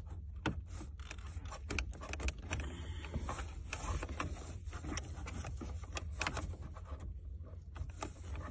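Irregular clicks, taps and light rattles of plastic wiring plugs being worked loose by hand under a car's dashboard, as the body control module's connectors are unplugged.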